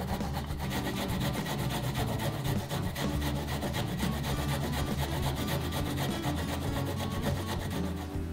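Fresh ginger root grated on a hand grater: quick, repeated rasping strokes as the root is rubbed back and forth over the grating plate.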